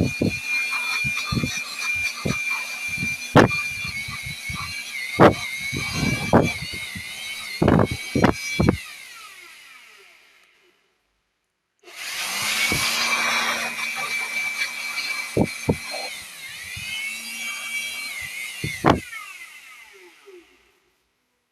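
A small handheld electric motor tool runs with a steady high whine and scattered sharp clicks. It winds down and stops about ten seconds in, starts again a second later, dips in pitch briefly, and runs down to a stop near the end.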